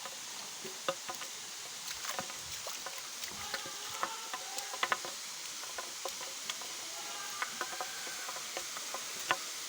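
Steady rushing hiss of a large waterfall, with scattered small clicks and a few faint, brief wavering sounds.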